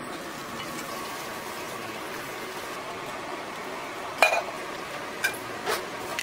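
Gloved hands tossing and squeezing wet, seasoned napa cabbage for kimchi in a steel bowl: a steady wet rustling and squelching, with a sharp knock against the bowl about four seconds in and two lighter ones soon after.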